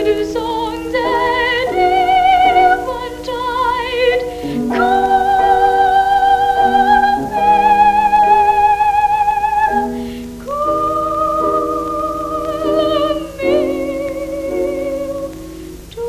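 Boy soprano singing a ballad in long, high held notes with a wavering vibrato, accompanied by piano chords.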